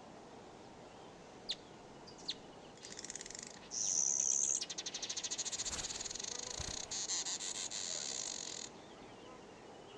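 An insect's high-pitched, rapidly pulsing trill starts about three seconds in and stops sharply near the end. Before it come two short high chirps.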